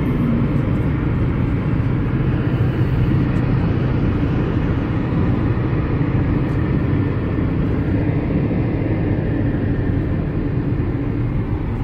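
Steady road noise inside a moving car's cabin at highway speed: tyres and engine running evenly, with no bumps or changes.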